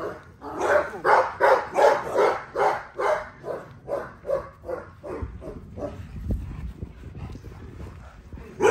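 Pitbull barking over and over in excited play, about three quick barks a second, easing off about halfway through.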